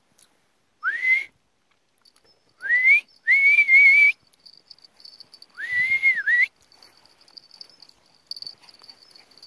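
A person whistling four times to call a puppy. Each whistle slides up and then holds. The first two are short, and the last two are longer and wavering, the final one dipping and rising again at its end.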